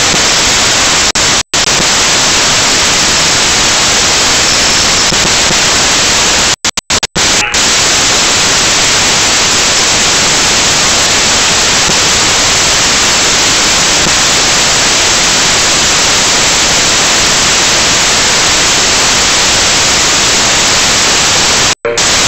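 Loud, steady static hiss from a cheap mini camera's audio recording, with no other sound standing out. It cuts out abruptly to silence a few times: once about a second and a half in, in a short cluster around seven seconds, and once near the end.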